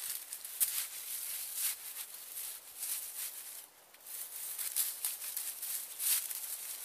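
Dry oak leaves and twigs crackling and rustling as branches are handled and laid against a debris shelter frame, in uneven clusters of short crackles with a brief pause a little before the middle.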